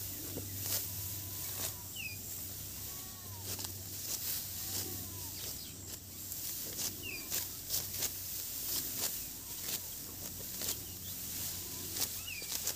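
Hand sickles cutting through dry, ripe rice stalks: a string of sharp, crisp snaps at uneven intervals, with the straw rustling as bundles are gathered.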